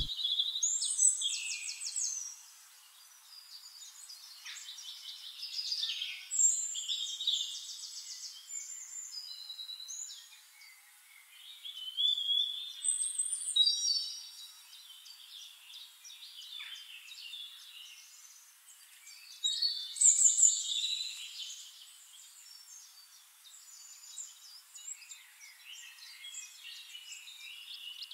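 Small birds singing: a chorus of chirps, trills and short whistles, all high-pitched with no low sound at all. It comes in louder bursts with quieter stretches between.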